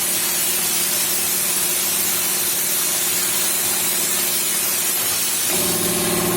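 Portable CNC plasma cutter running: the steady, loud hiss of the plasma torch's air jet over a low electrical hum. About five and a half seconds in, the hum gets stronger and buzzier.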